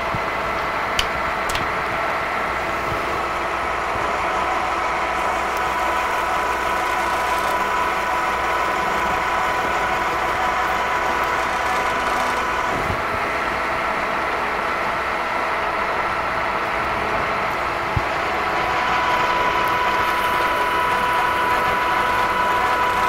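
Milling machine running in low gear at about 300 RPM while a center drill cuts into a steel hammer-head blank: a steady machine hum with a few held tones, and a couple of faint ticks about a second in.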